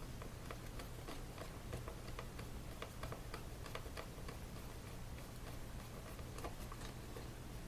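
Small screwdriver working the tiny M.2 retaining screw inside an Intel NUC mini PC: faint, irregular light clicks and ticks, several a second.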